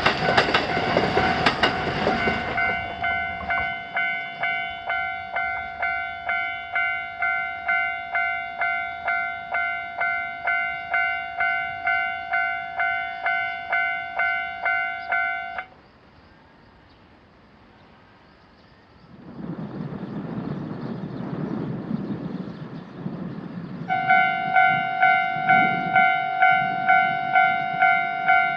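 Japanese railway level-crossing warning bell ringing 'kan-kan' at about two strokes a second, with a train clattering past at the start. The bell stops suddenly about halfway. After a short quiet spell and a low rumble, a crossing bell starts ringing again near the end.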